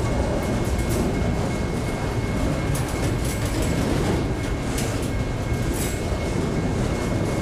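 Enclosed autorack freight cars rolling past at steady speed: a continuous rumble and rattle of steel wheels on the rails, with a few sharp clicks from the wheels and car bodies.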